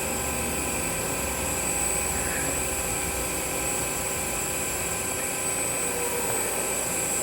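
Tsugami S206 Swiss-type CNC lathe's sub spindle running unloaded at a steady 2500 rpm: an even machine hum with several steady tones and a thin high whine on top.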